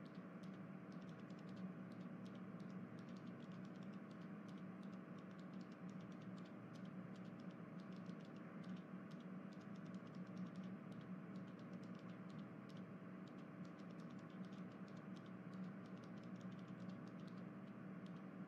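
Faint, irregular light clicking, many per second, over a low steady electrical hum.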